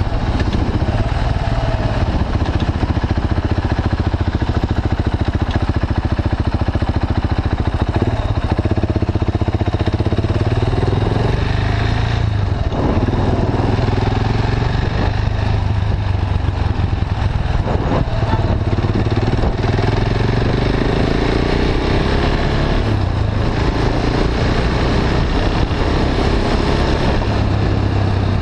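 KTM 690 Duke's single-cylinder engine running through an Akrapovic slip-on exhaust with the catalytic converter replaced by a bypass pipe, heard while riding. The revs rise and fall, with a few abrupt breaks at gear changes.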